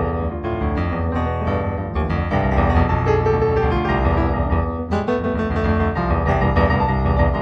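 Solo piano music: a busy run of notes over held low chords.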